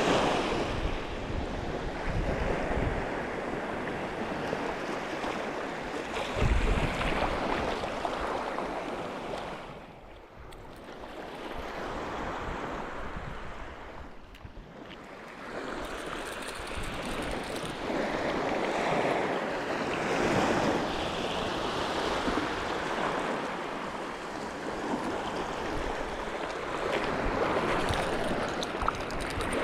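Sea waves washing against the shore in slow swells, with wind buffeting the microphone; the wash eases off for a few seconds about a third of the way in.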